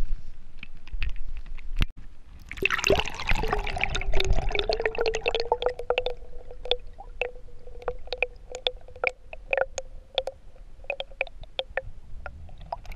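Water pouring and gurgling, starting about two and a half seconds in, with a hollow note that drops and then holds steady, amid a long run of drips.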